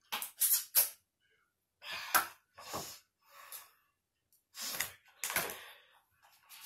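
A person drinking from a plastic water bottle, then breathing out in heavy gasps and sighs: a series of short, breathy bursts with pauses between them.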